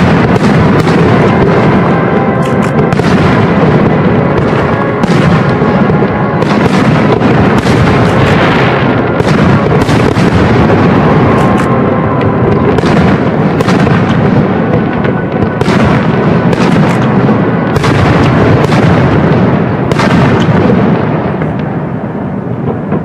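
Aerial firework shells bursting in a dense, continuous barrage of bangs over a rolling rumble, dying away near the end as the display finishes.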